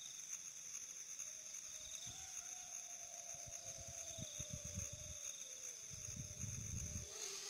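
Insects, such as crickets, trilling steadily with a high buzz, faintly, with a fainter wavering hum under them and a few low rumbles in the second half.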